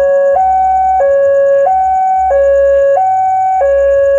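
Railway level-crossing warning device sounding its two-tone electronic alarm, loud and steady. It swaps between a lower and a higher tone about every two-thirds of a second, warning that a train is approaching the crossing.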